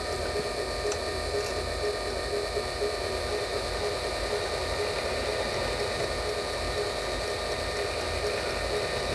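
Small lathe running steadily: an even motor hum with a steady whine, and a couple of faint light ticks about a second in.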